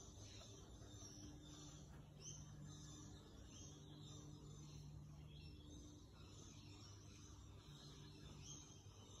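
Near silence, with faint repeated scratching of a flat bristle brush swept in short strokes across a canvas, over a low steady hum.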